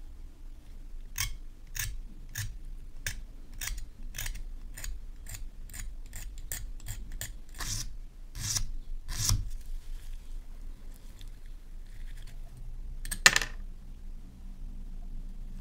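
Sandpaper rubbed against a small brass lamp fitting in short quick strokes, about two to three a second, the last few longer and louder. A single sharp knock near the end.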